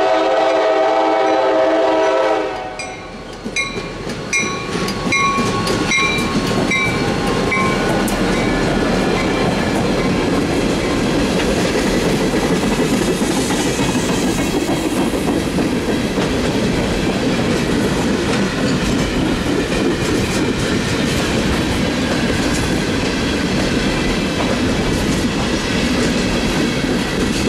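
Freight train led by an EMD GP30 diesel locomotive: its horn sounds a loud chord for the first two seconds or so, then a bell rings in even strokes for a few seconds as the locomotive passes. After that, the Tropicana juice boxcars roll by with steady wheel-and-rail noise and clickety-clack.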